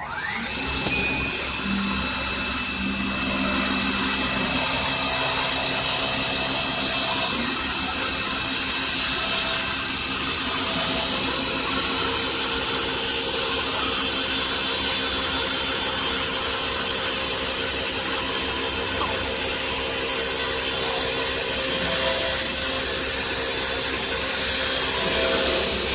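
CA 1530 CNC wood lathe running steadily. A motor whine rises briefly at the start and then holds, over a loud high hiss of the machine working.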